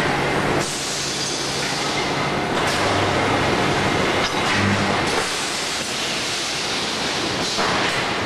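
Wheel rim roll forming machine running, a steel strip feeding through its forming rollers: a steady, loud mechanical noise with a low hum underneath and the hiss rising and falling every two or three seconds.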